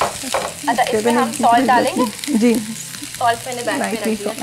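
Mixed vegetables sizzling in a little hot oil in a nonstick frying pan on a gas flame, being stir-fried and tossed. Voices are heard over it.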